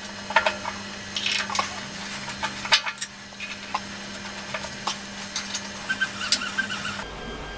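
Irregular small metal clinks and knocks as metal jaw-extension plates and their bolts are set against a bandsaw's vice jaws and fastened, with a steady low hum underneath.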